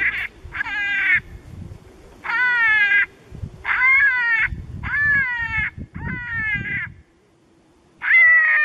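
An animal calling over and over: about seven calls, each under a second long, each sliding downward in pitch, with a short pause about seven seconds in.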